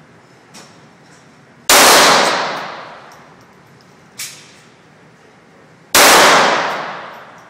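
Two single gunshots about four seconds apart, each dying away in an echoing tail over about a second. Two much fainter sharp cracks come about half a second in and about four seconds in.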